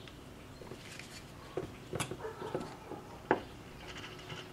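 A handful of small, sharp metal clicks and taps from a brake master cylinder clamped in a vise being handled and worked on as a stuck piston is coaxed out of its bore. The loudest click comes about two seconds in.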